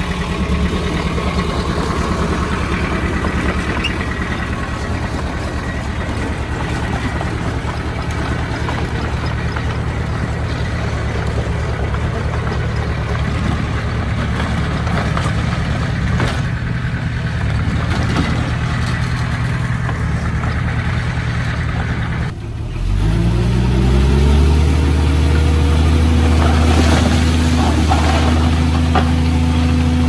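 Heavy diesel engine running steadily. Late on the sound breaks off briefly, then the engine rises in pitch over a couple of seconds and holds at higher revs, louder than before.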